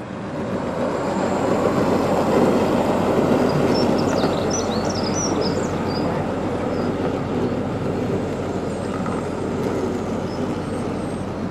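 Model electric train running along its curved track, a steady rumbling noise that swells over the first couple of seconds. A few brief high squeaks come about four to six seconds in.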